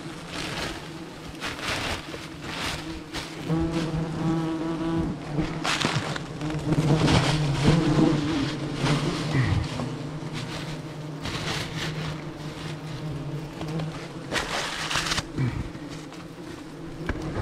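A mass of disturbed wasps buzzing steadily around their nest, with the crackle and rustle of the papery nest envelope and combs being torn out by hand.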